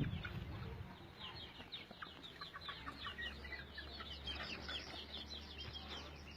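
Chickens calling in a flock, many short high-pitched calls overlapping, over a faint steady low hum.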